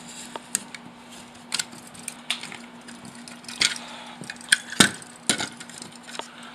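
Irregular sharp clicks, cracks and knocks from hand work on a wall: a thermostat stuck on with paint being prised loose from drywall. The loudest knock comes about three-quarters of the way through.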